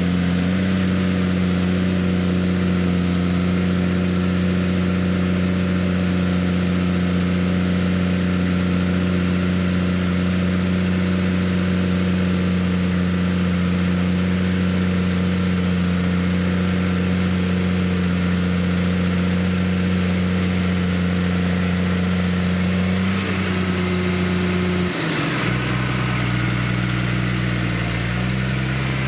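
JCB Fastrac 3230 tractor's engine running hard at a steady pitch while pulling a six-furrow plough through hard-packed grassland. About three-quarters of the way through, the engine note drops to a lower, different pitch.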